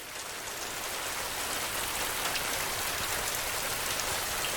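Steady rain falling, a dense hiss with scattered individual drops, fading in over the first second.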